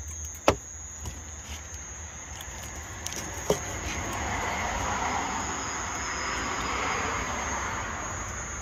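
A chef's knife cutting grilled octopus and knocking on a plastic cutting board: one sharp knock about half a second in and a lighter one about three and a half seconds in. A steady high insect trill runs throughout, and a broad rushing noise swells and fades through the second half.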